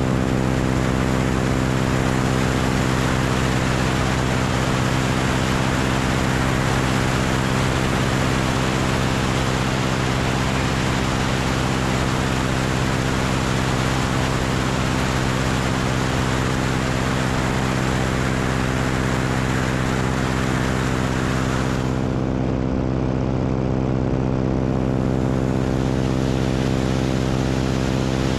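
A biplane's propeller engine runs steadily in flight under heavy wind rush on the wing-mounted microphone. About three quarters of the way through, the hiss of the wind drops away abruptly for a few seconds, then partly returns, while the engine runs on unchanged.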